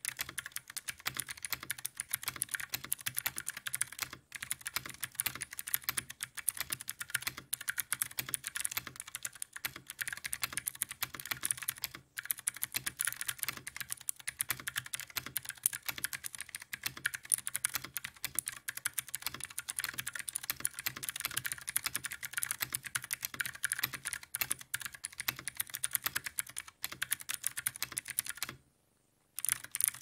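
Fast typing on a 60% mechanical keyboard with Outemu Gold click-jacket clicky switches in an aluminium case and plate: a dense run of high-pitched, plasticky clicks and clacks, which the reviewer calls absolutely atrocious. The typing stops briefly near the end.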